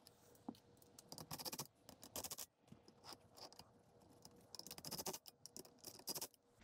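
Scattered light clicks, taps and scrapes of a Toyota Land Cruiser FJ80 front seat's metal frame and seat tracks being handled and shifted on a workbench, coming in clusters, with the busiest stretch near the end.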